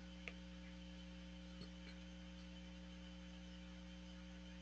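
Near silence: room tone with a steady faint electrical hum and a couple of faint clicks.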